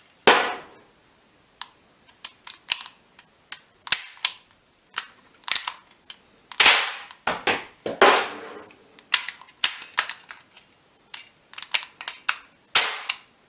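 GM2 model gun, a 1911-type pistol replica, firing cap-loaded small cartridges: an irregular string of about a dozen sharp cap reports with fainter clicks between them, ringing in a small room.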